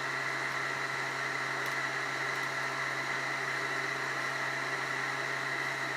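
Handheld laser running continuously with a steady hum and hiss, held on a plastic shotgun shell to burn a cut through it.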